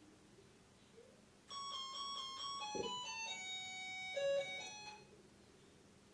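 A short electronic jingle of clear, beeping notes stepping up and down in pitch, starting about a second and a half in and lasting about three and a half seconds.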